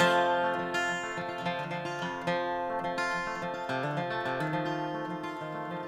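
Acoustic guitar playing: a chord strummed right at the start rings on, and the chord changes twice.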